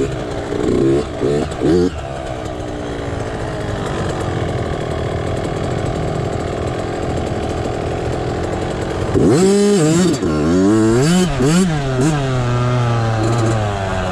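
Yamaha YZ65's 65cc two-stroke single-cylinder engine being ridden. It starts with a few short throttle blips, then a long steady pull whose pitch creeps slowly upward. From about nine seconds in, the revs rise and fall sharply several times as the throttle is worked.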